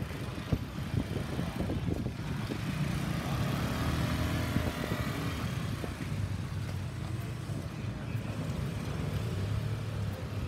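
Street traffic of motor scooters and a tuk-tuk, their small engines running with a steady low hum.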